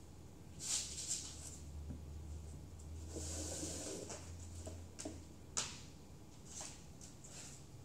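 Cardboard and newspaper being handled on a concrete floor: papery rustles about a second in, a longer scraping rustle as a cardboard sheet is slid into place, then a few sharp taps.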